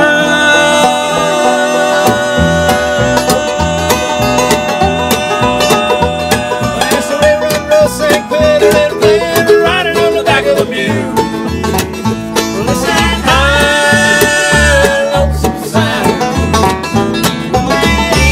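Acoustic bluegrass band playing: upright bass, five-string banjo, acoustic guitar and mandolin, with a man singing lead in long held notes over the picking.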